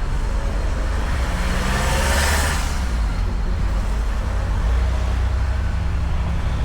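Street traffic: a steady low engine rumble, with a vehicle passing and swelling briefly about two seconds in.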